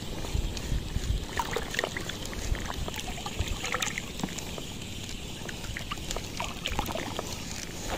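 Shallow seawater sloshing and trickling in small irregular splashes around a wading angler, with a steady wind rumble on the microphone.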